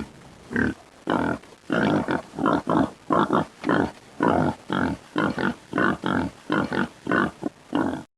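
An animal calling in a long run of short, rough calls, about two a second, which stops abruptly near the end.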